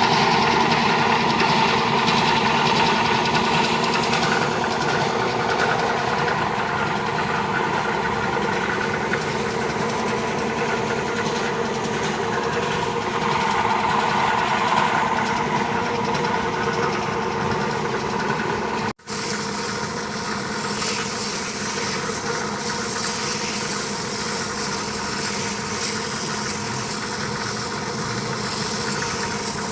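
Air compressor motor running steadily while it charges its tank with air. The sound cuts out for an instant about two-thirds of the way through, then carries on unchanged.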